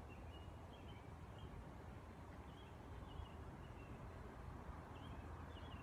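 Near silence: quiet room tone with a low hum, and faint short high chirps now and then.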